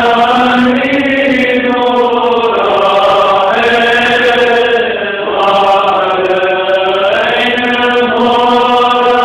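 Syrian Orthodox Lenten prayer chanted by monks in men's voices: a slow, continuous melody of long held notes that slide between pitches, with a brief dip about five seconds in.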